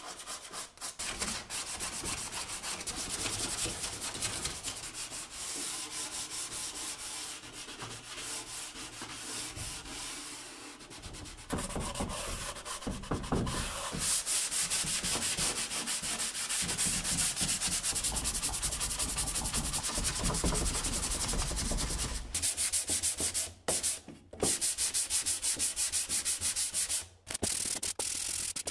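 Sandpaper rubbed by hand over bare wood veneer and solid wood, 240 grit, in rapid back-and-forth rasping strokes. The rasp changes in character twice as the work moves to different surfaces.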